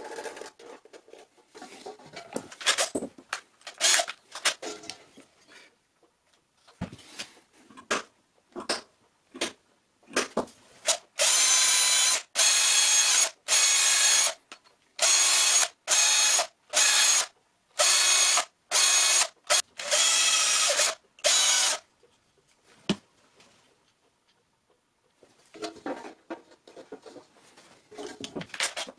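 Cordless drill running in about ten short bursts, one after another, while drilling a small part held in the hand. Before and after the drilling, scattered light clicks and knocks of handling.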